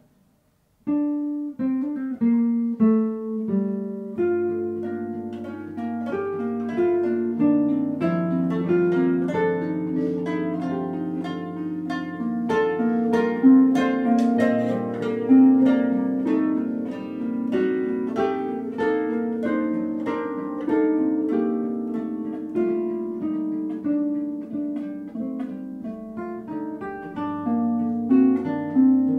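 Harp, classical guitar and mandolin playing together as a chamber trio, plucked notes ringing out in a shifting, dense texture. After a moment of silence the trio enters sharply about a second in.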